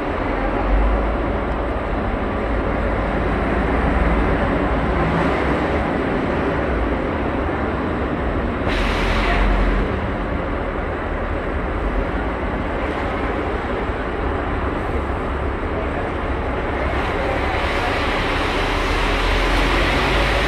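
Diesel coach engines idling in a bus terminal bay: a steady low rumble, with a short hissing burst about nine seconds in.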